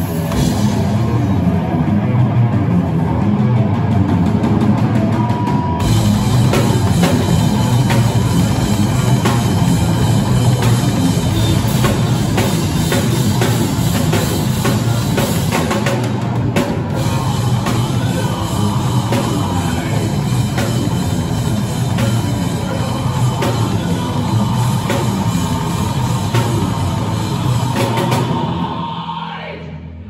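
Live rock band playing loud through amplifiers: electric guitars, bass guitar and drum kit. The sound fills out about six seconds in, and the song winds down and stops near the end.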